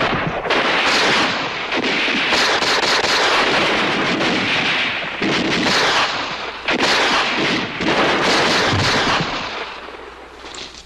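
Dense battle gunfire with several loud blasts, dying down near the end.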